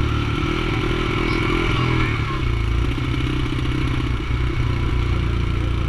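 Small engine of the towing vehicle running steadily at low speed, its note settling lower about two seconds in.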